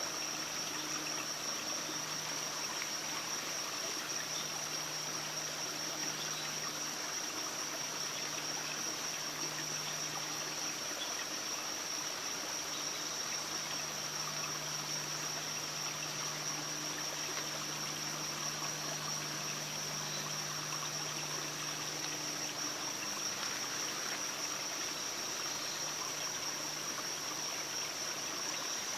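Steady forest ambience: an even hiss like running water under one continuous high-pitched whine, with a faint low hum that comes and goes.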